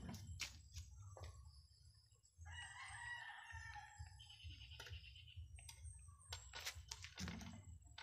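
A rooster crows once, about two and a half seconds in, a faint call over low background hum. Scattered light clicks come from bonsai wire being handled and wrapped around the trunk.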